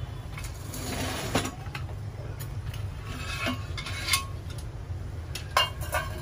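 Metal and enamel clinking and scraping as the green enamel shade of a Petromax pressure lantern is lifted off and handled, with a few sharp clinks in the second half, over a steady low rumble.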